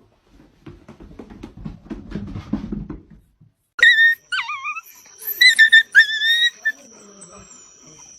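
A dog whining: a run of high-pitched, wavering cries about four seconds in, after a few seconds of soft rustling.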